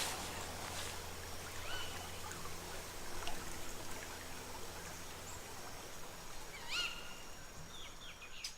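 Outdoor ambience: a steady noisy background with a low hum that fades out about five seconds in. Short bird chirps come about two seconds in and again twice near the end.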